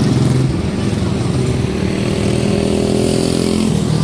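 Several quarter midget race cars' single-cylinder Briggs & Stratton Animal engines running together on a dirt oval, their overlapping pitches rising and falling slightly as they circle.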